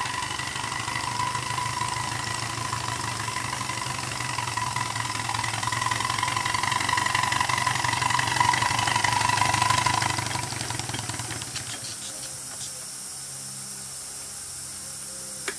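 A 7¼-inch gauge miniature train running with a steady drone and a pitched whine. It gets louder as it comes close, then slows and stops about eleven seconds in. After that a soft, steady hiss of steam escapes from the Climax geared steam locomotive.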